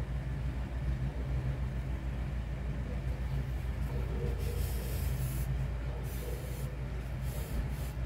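Steady low background hum, with a few brief soft rustles from about halfway through as yarn and the crocheted piece are handled.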